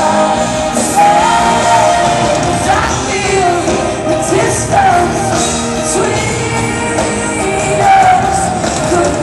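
Female pop-rock singer singing live with a full rock band, holding long notes with slides between them, heard through a camera microphone in the audience.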